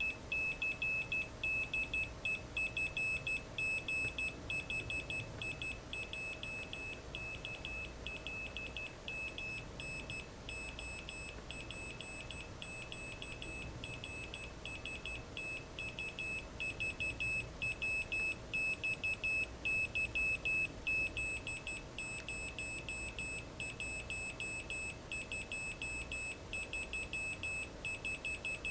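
Arduino-driven speaker beeping out Morse code: one high-pitched tone switched on and off in quick short and long pulses, dots and dashes. It runs through the programmed letters, numbers and punctuation one after another without a break.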